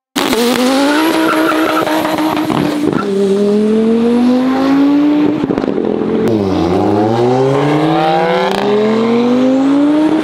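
Turbocharged 2.2-litre five-cylinder engine of a tuned Audi S2 Avant under full-throttle acceleration. It rises in pitch, drops back and rises again three times as it pulls through the gears.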